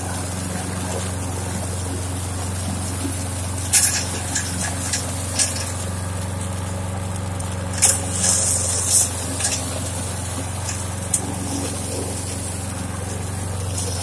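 Gasoline walk-behind lawn mower's small engine running steadily at cutting speed, with several brief sharp clatters mixed in, the loudest about eight to nine seconds in.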